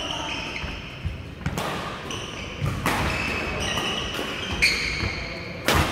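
Badminton rally: rackets striking the shuttlecock three times, the last and loudest hit near the end, with short squeaks of shoes on the court floor between the strikes.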